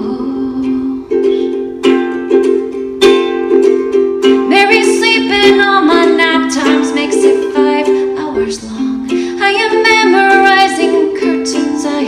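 Ukulele strummed in steady chords during a wordless break in a live song, with a higher melody line moving over the chords from about four seconds in.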